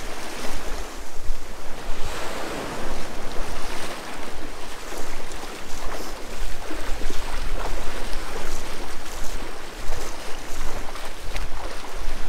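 Wind buffeting the microphone with a low, gusty rumble, over waves washing on a beach.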